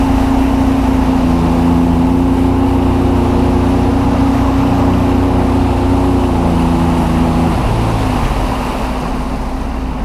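Sea-Doo personal watercraft engine running steadily at speed. Near the end the throttle eases off and the engine note drops.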